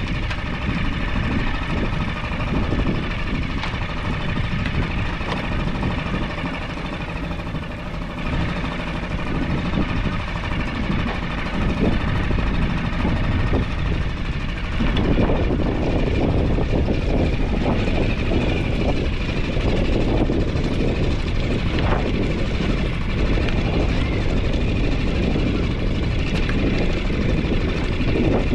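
Trimaran's outboard motor running steadily as the boat motors along, getting louder and fuller about halfway through.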